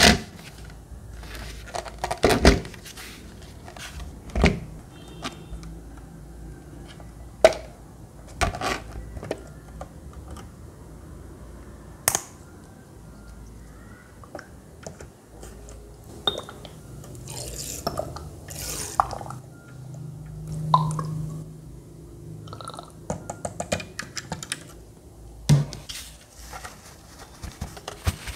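Scattered plastic clicks and knocks of hands handling a small plastic misting fan, with a few short rustling bursts as its water tank is filled from a plastic squeeze bottle.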